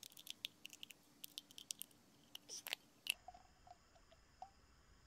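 Faint crinkling and clicking of a thin aluminium drink can as its two cut halves are squeezed and pushed into each other, with a sharper click about three seconds in; after that only faint hiss.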